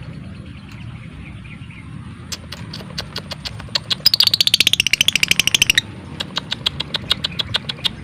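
A lovebird making its ticking 'typing' call (ngetik). Scattered sharp clicks run together into a rapid chattering rattle about halfway through, lasting nearly two seconds. The clicks then go back to a slower, irregular ticking.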